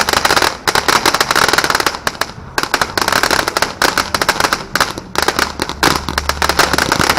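Fireworks going off as rapid, dense runs of sharp cracks, in about four bursts separated by brief pauses.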